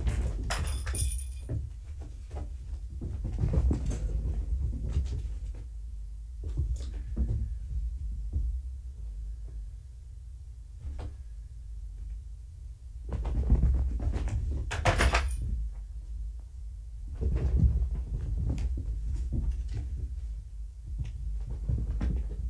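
Kittens running, pouncing and tumbling on a rug-covered floor: irregular soft thumps and scuffles, with a brief jingling rattle about a second in and again around fifteen seconds.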